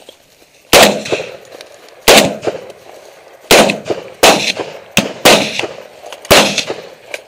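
Hunting gunshots in quick succession: about six loud reports roughly a second apart, each with a short echoing tail.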